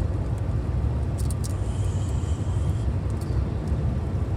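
Steady low rumble of road and engine noise inside a moving car's cabin, with a few faint clicks about a second in.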